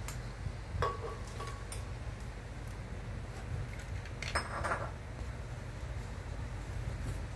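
A few light clinks and knocks of kitchenware being handled, one ringing briefly near the start and a short clattering cluster about four and a half seconds in, over a steady low hum.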